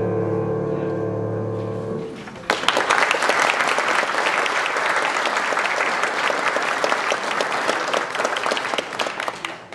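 The last chord of a grand piano piece rings and is released about two seconds in. About half a second later, audience applause breaks out and carries on.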